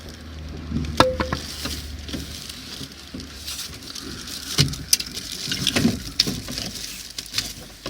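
Car door lock being handled and worked back into the door by hand: scattered clicks, taps and rattles of metal and plastic parts, with a sharp click about a second in and a run of clicks around the middle.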